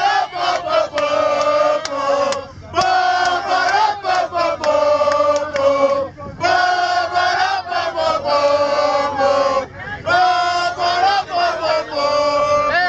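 A crowd of partygoers chanting and singing together in loud phrases a few seconds long, with short breaks between them.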